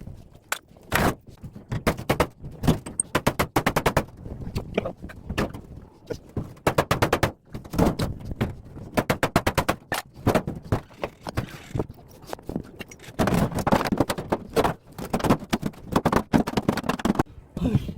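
A discarded top-loading washing machine being taken apart: repeated bursts of fast, evenly spaced clattering impacts, broken by single knocks and scraping.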